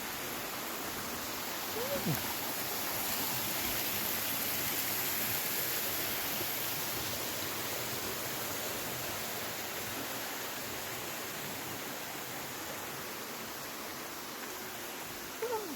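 Steady rushing noise, with a short falling tone about two seconds in and another just before the end.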